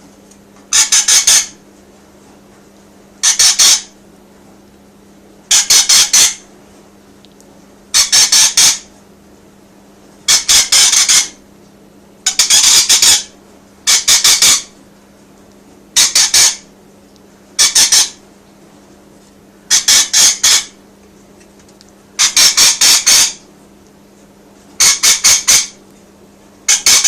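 Rainbow lorikeet calling to other birds with loud, shrill screeches, given in short stuttering bursts about every two seconds.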